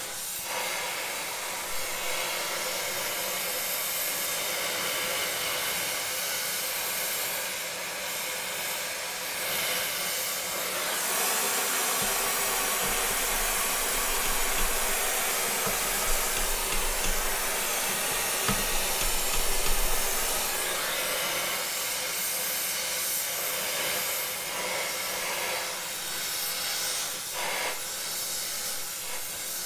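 Gas heating torch flame hissing steadily as it heats a seized bolt and its welded-on nut, to expand the surrounding steel so the bolt will come undone. The hiss grows brighter for a while in the middle, with a few light knocks.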